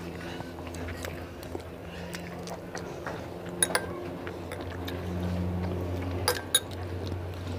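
Chowmein noodles being slurped and chewed, with a few sharp clicks of chopsticks and a spoon against plates, in pairs about three and a half and six seconds in. A steady low hum runs underneath.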